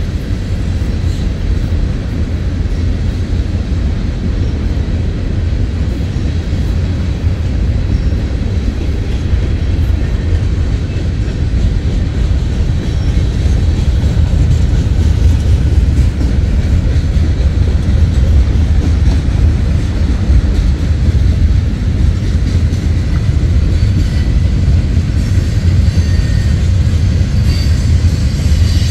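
Freight cars of a manifest freight train rolling past: a steady low rumble of steel wheels on rail that grows a little louder about halfway through.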